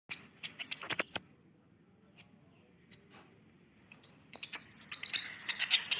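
Squirrel chirping: a quick run of sharp chirps in the first second, a few single chirps after it, then another quick run in the last two seconds.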